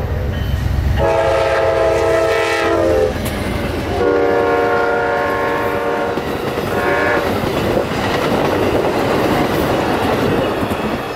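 Amtrak passenger train passing at speed, its locomotive sounding the horn in two long blasts and a short one. Then the rumble and clickety-clack of the passenger cars rolling by.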